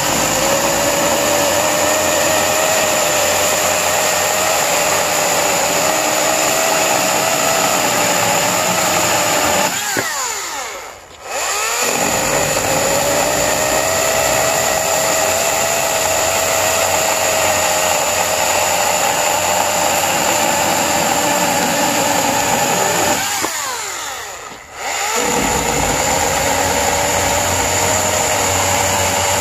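EGO 14-inch battery-powered chainsaw running under load, cutting through a wooden beam. Its motor whine winds down and spins back up twice, about ten and twenty-four seconds in, as each block is cut off and the next cut begins.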